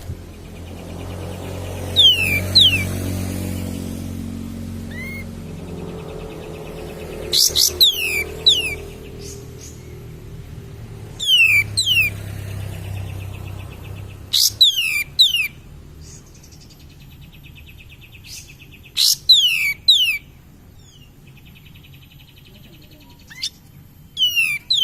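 White-shouldered triller (kapas tembak) singing: short bursts of sharp, steeply falling whistles about every four seconds, with a buzzy trill between some of them. A low hum sits underneath in the first half.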